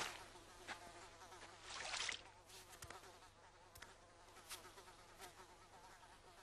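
Faint, wavering buzzing of flies, with a few faint ticks.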